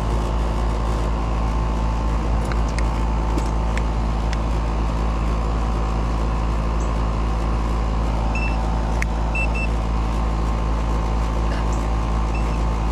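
Outdoor air-conditioner condensing unit running: a steady hum from the compressor and condenser fan. A few short high beeps come in the second half.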